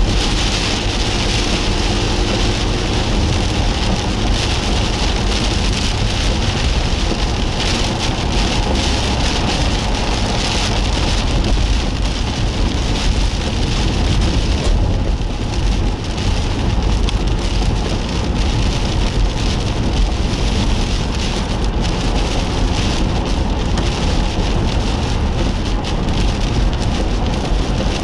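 Heavy rain hitting a moving car steadily, with a low road and engine rumble underneath.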